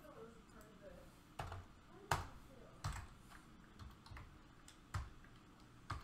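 Keystrokes on a computer keyboard: about seven separate, unevenly spaced key presses, the loudest about two seconds in.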